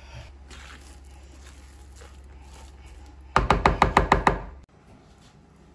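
A metal spoon knocking rapidly against a white ceramic bowl while a mashed potato mixture is stirred: about ten quick knocks in just over a second, a little past halfway through.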